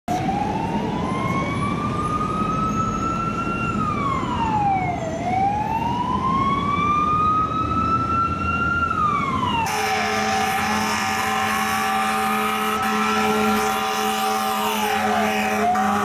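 Fire rescue truck's siren wailing, each cycle rising slowly and then dropping quickly, over the rumble of its engine. About ten seconds in, the truck's air horns start a long, steady blast of several pitches at once that holds on while the siren keeps wailing under it.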